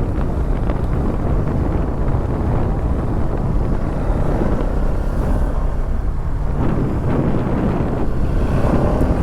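Wind buffeting the microphone of a moving motorcycle, a steady rumbling rush with the engine running underneath. A faint rising tone comes in near the end.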